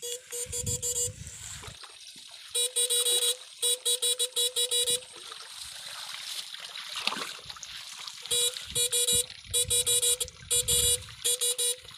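Electric fishing rig buzzing in rapid on-off pulses, switched on in bursts of about a second, five times, while its probes are in the water. Water trickles underneath.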